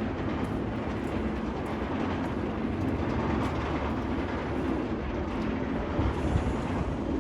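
Steady rumble of a roller coaster train running on its track, with faint clicks about once a second.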